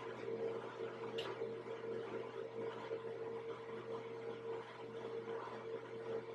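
A steady hum over soft room hiss, with one brief faint high squeak about a second in.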